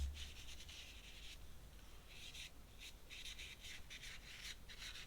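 Ink pen scratching across paper in a series of short strokes, some quick, some held for about a second, as lines are thickened in an ink drawing. A soft low bump at the very start.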